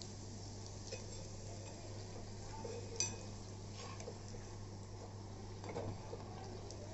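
Bhatura deep-frying in oil in a steel kadhai with a low sizzle, while a slotted steel spoon knocks and scrapes against the pan as it presses, lifts and flips the bread. There is one sharp metal clink about three seconds in, a few lighter knocks near the end, and a steady low hum underneath.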